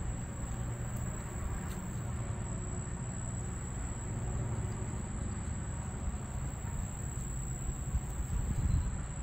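Insects trilling steadily in one continuous high-pitched tone, over a low steady rumble.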